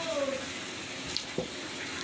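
Water running steadily from a tap, with a couple of light knocks about a second and a half in.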